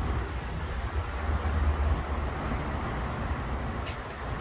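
Outdoor city ambience: a steady hiss of distant traffic under an uneven low rumble of wind on the microphone.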